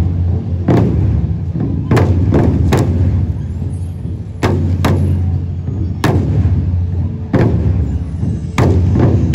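An ensemble of large barrel drums played together with sticks: about ten heavy unison strokes at uneven spacing, each booming and ringing on, with quicker, softer drumming filling the gaps.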